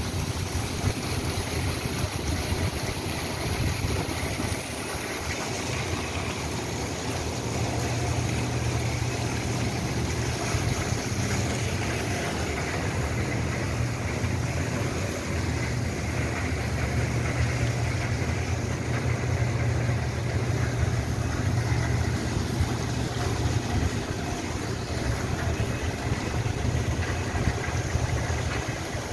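Steady low machinery drone with an even hiss over it, unbroken throughout.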